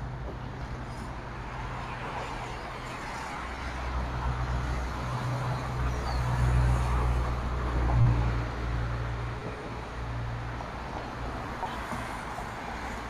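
Road traffic passing on a wide multi-lane boulevard, cars and a city bus among it: a low engine drone and tyre hiss that swell to their loudest about six to eight seconds in, with a short knock near the eight-second mark, then ease off.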